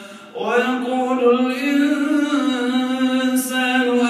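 An imam chanting Quran recitation in a man's voice, in long held, gliding phrases. There is a short breath pause just at the start, then the recitation resumes.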